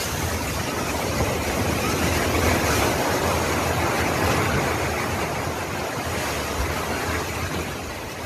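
Multi-storey apartment building collapsing in an earthquake: a long, loud rumble of falling concrete and masonry that swells over the first couple of seconds and slowly eases toward the end.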